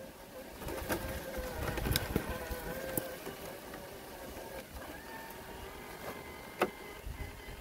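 Traxxas TRX-4 RC crawler's electric motor and gears whining, the pitch wavering up and down with the throttle. There are a few sharp knocks, the loudest about six and a half seconds in.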